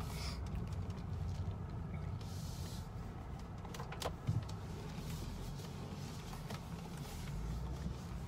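Steady low rumble of a car heard from inside the cabin, with a few sharp clicks about halfway through.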